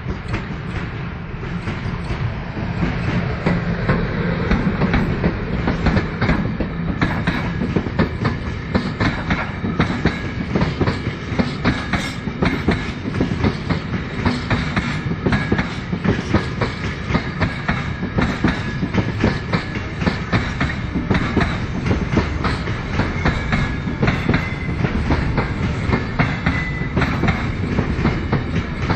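A freight train hauled by a Siemens Vectron electric locomotive passes close by, and its intermodal container flat wagons roll past with a steady rhythmic clickety-clack of wheels over the rails. The sound grows louder over the first few seconds as the locomotive draws level, then holds steady as the wagons go by.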